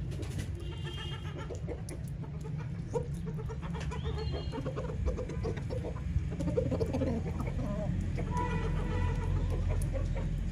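Domestic chickens clucking on and off in short calls, over a steady low rumble.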